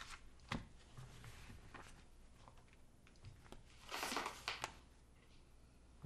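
Quiet handling of paper notebooks on a wooden table: a soft knock about half a second in, then a short rustle and slide of paper about four seconds in as a notebook is set down.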